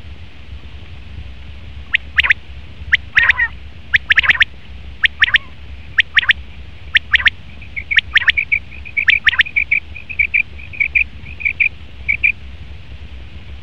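Male common quail calling: sharp, high-pitched notes in quick pairs and triplets about once a second, then a faster run of shorter, softer chirps near the end.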